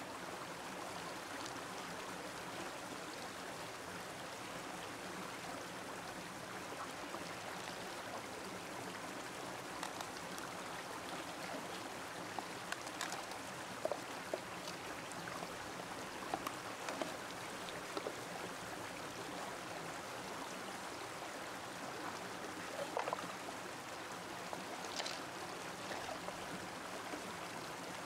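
Steady running water of a shallow stream, with a few light clicks and knocks scattered through as hands work open freshwater mussel shells and handle the pearls.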